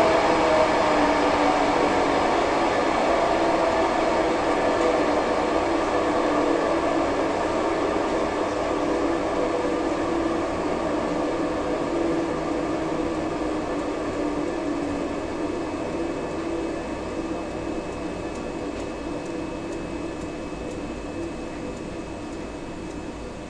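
10 HP Spencer Orgoblo pipe-organ blower and its electric motor coasting down after being switched off. A steady hum and rush that slowly sinks in pitch and fades.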